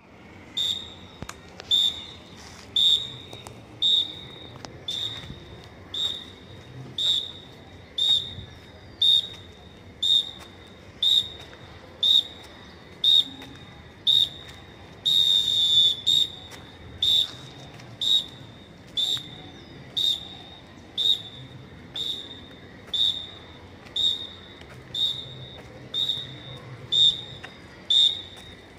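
A drill instructor's whistle blowing short blasts about once a second, keeping the count for a mass drill, with one longer blast about halfway through.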